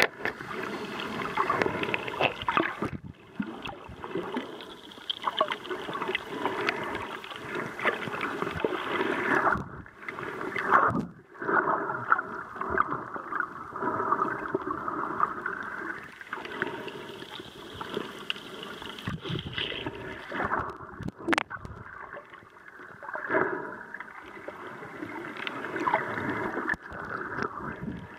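Underwater noise picked up by a submerged camera: a continuous rush of moving water with irregular crackles and bubbling, dipping briefly a few times.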